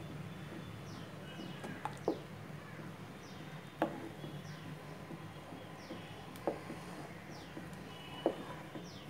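Wooden spoon stirring thick urad dal porridge in a non-stick kadai, knocking against the pan four times, about every two seconds, over a steady low hum. Faint short high chirps repeat about once a second throughout.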